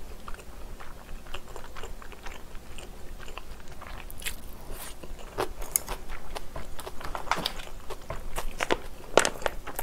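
Close-miked chewing of a mouthful of black bean instant noodles, with irregular wet mouth clicks and smacks, a few louder ones in the second half.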